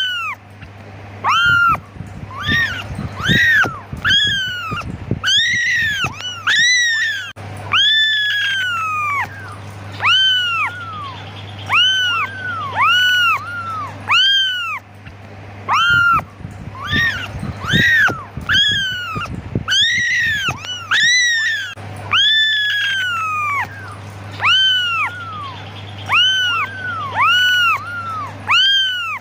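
Young kittens meowing over and over, about one high-pitched call a second, each rising and then falling in pitch, some overlapping. It is the repeated crying of kittens calling for their mother.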